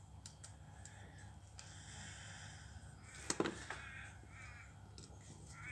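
A sharp metallic click about halfway through, as Meccano parts are fitted together, with a few lighter clicks before it. After it, a bird gives short, harsh cawing calls in the background several times.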